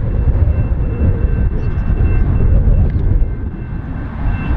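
Diesel-electric freight locomotives working a heavy grain train as it approaches, a steady low engine rumble.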